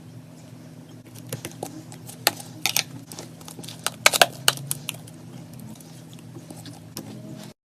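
Slime being squished and worked by hand, giving irregular sharp clicks and pops over a low steady hum; the sound cuts off abruptly near the end.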